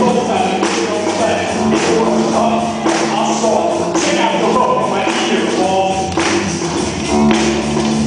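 A rock band playing live, with a steady beat of drum and cymbal hits over pitched instruments.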